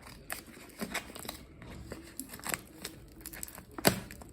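Packaging being torn and crinkled by hand as a parcel is opened, a run of scattered crackles and rustles, with one sharp knock near the end.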